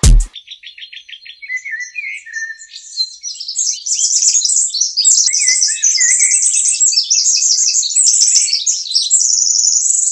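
A low thump at the very start, then birdsong-like chirping: a run of quick, high, evenly repeated chirps that swells from about three seconds in into a dense chatter of many overlapping chirps.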